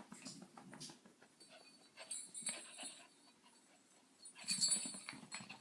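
A small pet dog whimpering faintly, in two short spells about two seconds in and again about four and a half seconds in.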